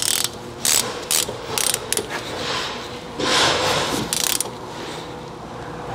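Ratchet wrench clicking in short, uneven bursts as it tightens a rear brake caliper bolt, with a longer run of ratcheting about three seconds in.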